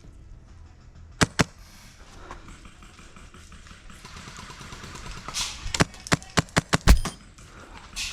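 Airsoft rifle shots: two quick shots about a second in, then a rapid string of about seven shots near the end, with a short rustle just before them.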